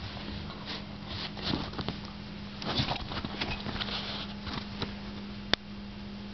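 A dachshund's paws and claws pattering and clicking on a wooden floor and rug as it moves about with a tennis ball, with one sharp click about five and a half seconds in. A steady hum runs underneath.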